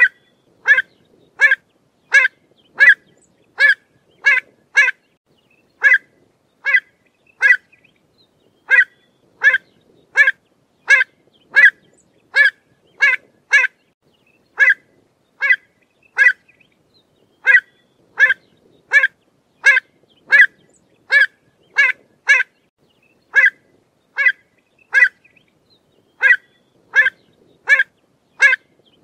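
Pied avocet calling: a long series of short, sharp, clear notes, about one and a half a second, in runs of three to five with brief pauses between.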